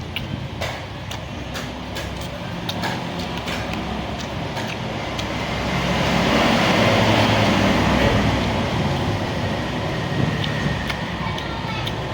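Road traffic noise that swells as a vehicle passes about six seconds in and fades again, with scattered small clicks.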